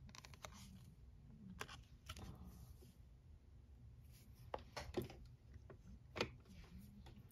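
Faint handling of nail-stamping tools: a few light, separate clicks and taps as a clear stamper and a plastic scraper card are handled and set against the stamping plate.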